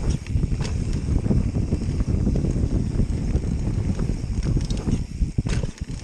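Wind buffeting the action camera's microphone as a mountain bike rolls fast down a dirt trail, with tyre noise and scattered clicks and rattles from the bike. The rumble dips briefly near the end.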